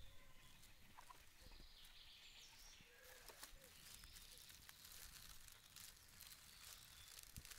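Near silence: faint woodland ambience with a few faint, high bird chirps and scattered soft clicks.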